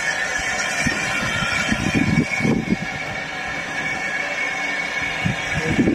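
Saddle-tank steam locomotive moving slowly with a coach: a steady hiss with irregular louder low sounds about two seconds in and again near the end.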